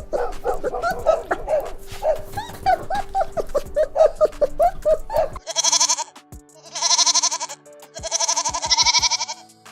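A quick run of short, high yapping calls, then, from a little past halfway, a goat bleating three times in long, quavering calls, the last one the longest.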